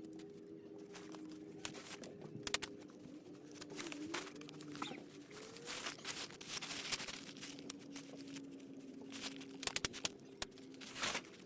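Irregular clicks and rustling, handling noises, over a faint steady hum with a few slowly gliding tones.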